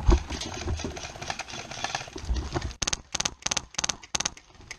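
Airsoft rifle firing about six quick shots, roughly four a second, starting a little under three seconds in, heard close up through a camera mounted on the gun. Before the shots, knocks and rustling as the gun is handled.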